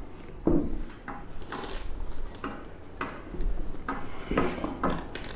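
Handling noise as a boxed motorcycle helmet is unpacked: a cloth drawstring bag rustling and rubbing, and the helmet scraping and knocking against the cardboard box, in irregular short bursts.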